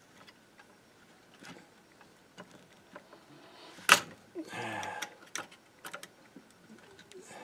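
Scattered small clicks and taps of tools and small metal parts being handled on an old tape recorder's chassis during disassembly, with one sharp, louder click about four seconds in.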